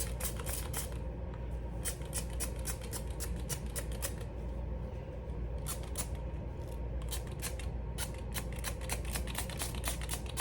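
Plastic trigger spray bottle pumped rapidly, many short quick spritzes a second, sputtering because it is low on water and not spraying properly.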